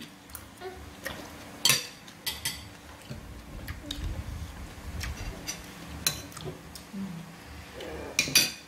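Metal spoons clinking and scraping against ceramic plates and bowls while people eat, with several sharp clinks scattered through; the loudest come near the end.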